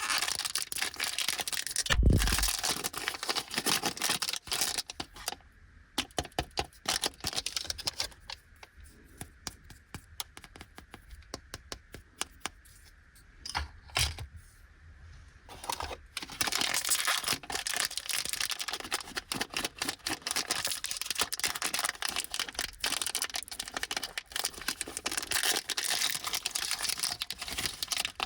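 Plastic wrappers of Fujiya Anpanman lollipops crinkling and tearing as they are opened, with a thump about two seconds in. A quieter stretch of scattered clicks and taps runs through the middle, and dense crinkling starts again about sixteen seconds in.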